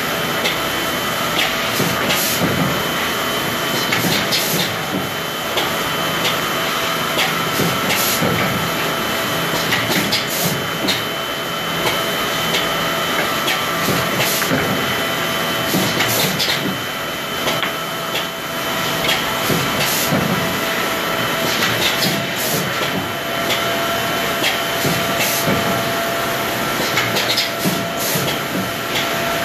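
Steady noise of woodworking machinery and its dust extraction running, with a couple of faint steady whines and frequent sharp clacks as particleboard strips are fed through the machine.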